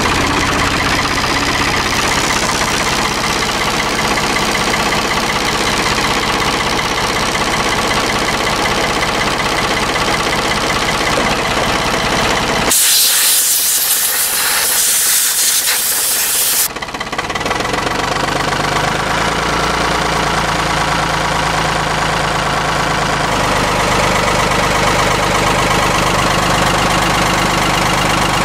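Ford 445C skip loader's engine idling steadily, just after a cold start. About halfway through, a loud hiss covers it for about four seconds.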